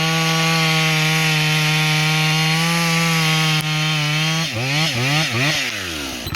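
Two-stroke chainsaw running flat out at a steady high pitch, held in a cut. About four and a half seconds in, the throttle is blipped up and down four times. The engine then drops back and stops at the end.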